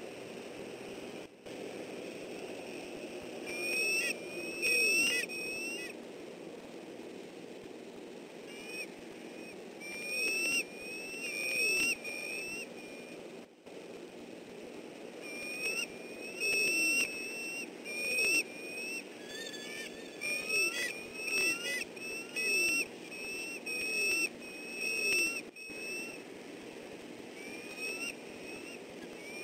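Bald eagles calling: bursts of high, thin, chirping notes in quick runs of several notes, repeated many times. Lower falling notes sound beneath them over a steady outdoor hiss.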